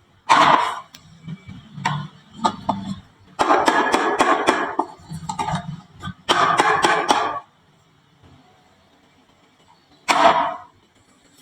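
Marbles clicking and clattering down a wooden marble-run slope, in several spells of rapid clacks, with a quiet gap of about two seconds before one last short burst near the end.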